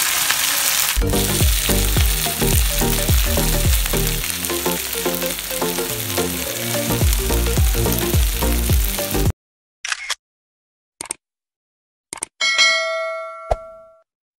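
Chicken sizzler hissing in a hot frying pan, with rhythmic background music joining about a second in; both cut off suddenly about nine seconds in. A few short clicks follow, then a ringing bell ding that fades out.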